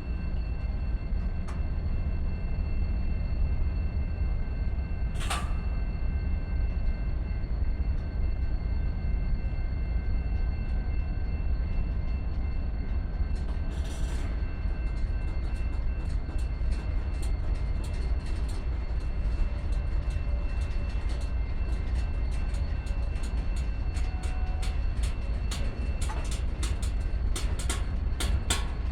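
Freight train rolling by: a steady low rumble with faint, thin high-pitched tones held throughout. From about halfway on, a quickening run of sharp clicks of wheels passing over rail joints.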